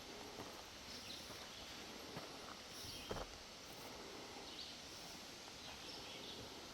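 Quiet outdoor ambience in the woods, with a few soft footsteps about a second apart and faint, short, high chirps now and then.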